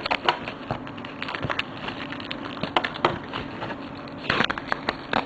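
Plastic shrink wrap crackling and crinkling as it is pulled and peeled off a cardboard booster box, in irregular clicks with a louder burst of crackling about four and a half seconds in.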